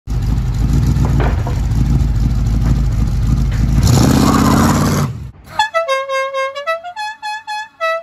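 Loud vehicle noise for about five seconds, then a car horn playing a short tune of several notes that step up and down in pitch.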